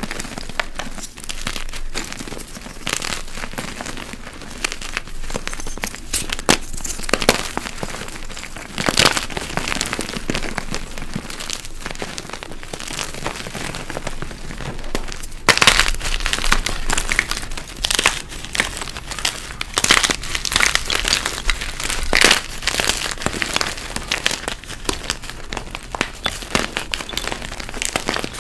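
Blocks of dyed gym chalk crushed by hand, a dense run of crunching and crackling as they break and crumble to powder, with louder bursts of crunching around 9 s, from about 15 to 17 s, and again from about 20 to 23 s.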